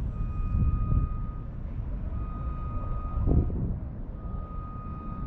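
Low vehicle rumble with wind on the microphone, swelling about three seconds in as a vehicle passes. Over it a construction vehicle's reversing alarm sounds long beeps, about one second on and one second off.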